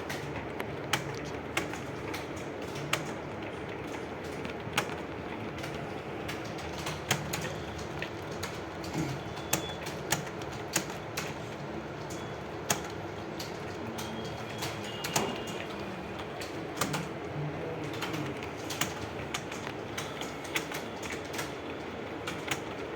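Computer keyboard being typed on: sharp key clicks at an irregular pace over a steady background hum.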